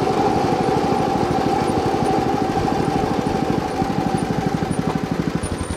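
Small engine of an aluminium rail maintenance cart running with a fast, even chugging as the cart rolls along the track, a steady whine over it. The sound slowly drops and the whine fades out near the end as the cart slows down.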